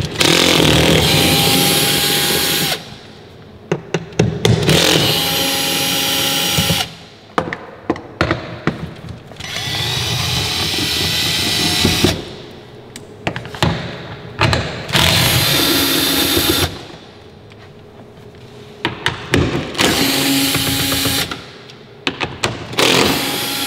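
Cordless drill-driver with a 10 mm socket spinning bolts out of a car's front trunk tub. It runs in about six bursts of two to three seconds each, with short pauses and small handling clicks between them.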